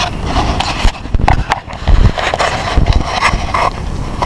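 Wind buffeting the camera's microphone in gusts, with irregular thumps and rustles.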